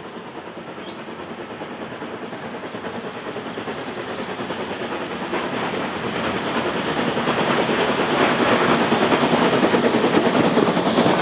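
Small steam tank locomotive chuffing as it approaches and passes with a coach, growing steadily louder and loudest near the end. A few faint bird chirps near the start.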